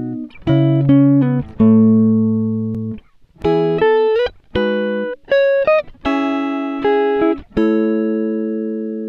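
Background music: a plucked-string melody with chords, each note starting sharply and then fading.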